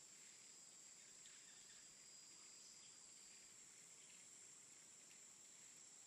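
Faint jungle ambience: a steady high-pitched drone of chirping insects, with a thinner high tone that stops a little past halfway and scattered short faint calls.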